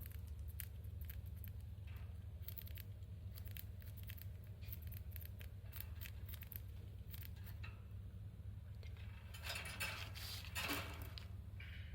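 Parakeet biting and crunching cabbage leaf: faint, irregular crisp clicks and crackles, with a louder crunchy rustle about ten seconds in, over a low steady hum.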